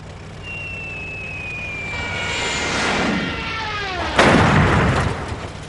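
Cartoon sound effects: a long descending whistle, like something falling, that thickens into a falling, many-toned swoop, then cuts to a loud crash or boom about four seconds in that rumbles on briefly.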